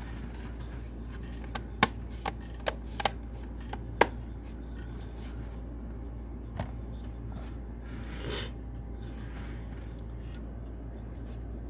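Sharp clicks and taps from handling a laptop during reassembly: a quick cluster of about six, a single click a couple of seconds later, then a brief rustle, over a steady low hum.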